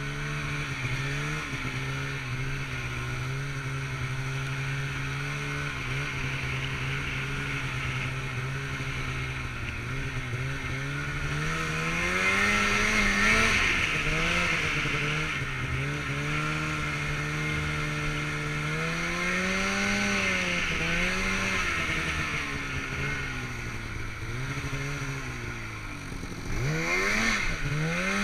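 Snowmobile engine running under throttle through powder. The pitch holds steady for about ten seconds, then rises and falls with the throttle several times, dipping and climbing sharply again near the end, with a steady hiss over it.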